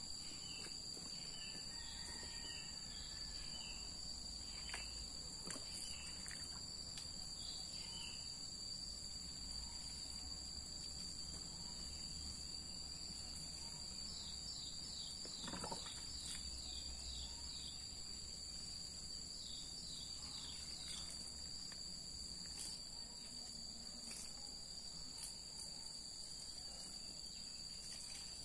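Outdoor insect chorus: a steady, high-pitched drone of several held tones, typical of crickets or cicadas. Runs of short falling chirps come through it a few times.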